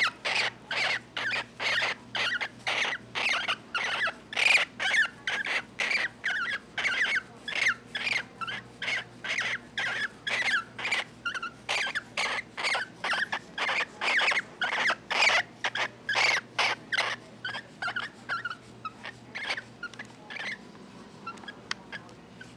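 Female cockatiel giving a long run of short, evenly repeated calls, about two to three a second, made while her back is being scratched. The calls grow fainter and sparser near the end.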